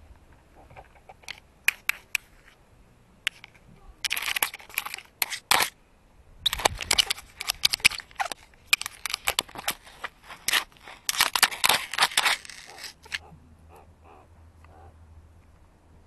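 A meerkat nosing at the camera right against the microphone: close scratching, scraping and clicking against the camera body. The noise comes in clusters from about four to thirteen seconds in, with scattered single clicks before that.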